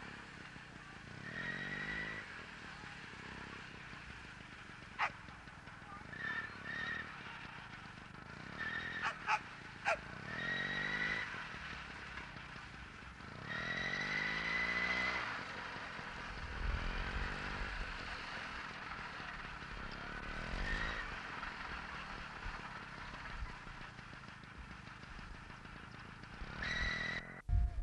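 A small motor revving up again and again, each run a rising whine lasting about a second, with a few sharp clicks in between. This is typical of the motor-driven lure machine that pulls the lure line across a coursing field.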